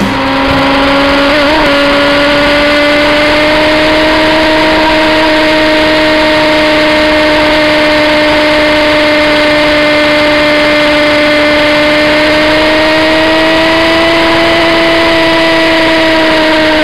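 Sport motorcycle engine held at high revs at motorway speed, heard from onboard: a steady engine note over rushing wind. The note climbs slightly and eases back near the end.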